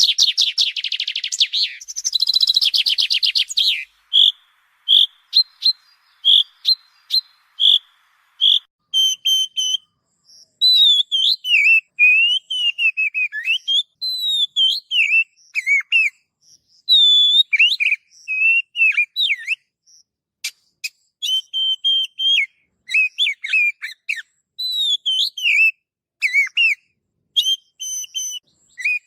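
Songbird singing: a fast chattering trill for the first few seconds, then a run of single evenly spaced notes about one a second, then varied whistled phrases gliding up and down in pitch.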